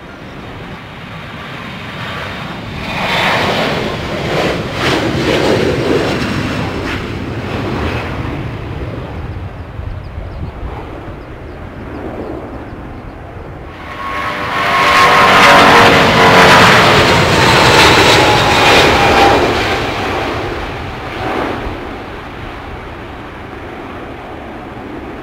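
Jet airliner takeoffs. A Boeing 737's engines build to takeoff thrust as it rolls and climbs out. About 14 s in, the sound switches abruptly to a louder Boeing 777 climbing away at full power, with a falling whine over the engine noise, then fades toward the end.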